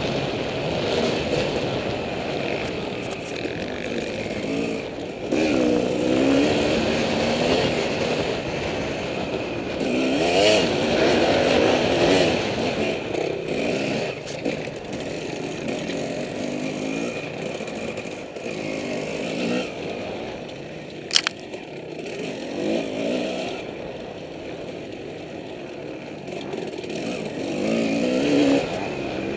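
Off-road racing motorcycle engine heard from on board the rider's own bike, revving up and falling back again and again as the rider works the throttle and gears over rough dirt. One sharp knock cuts through about two-thirds of the way in.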